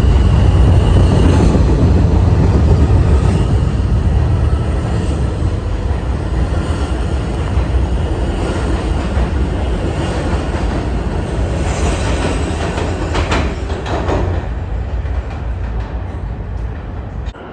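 New York City subway train running through an underground station, with a heavy rumble and rail noise that slowly fades as it pulls away. A brief higher screech comes about 13 seconds in.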